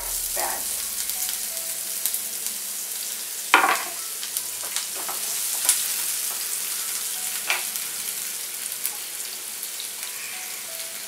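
Chopped onions hitting hot oil with mustard and cumin seeds in a nonstick frying pan and sizzling steadily, the sizzle starting suddenly. A wooden spatula stirs and scrapes them around the pan with a few short knocks, the loudest about three and a half seconds in.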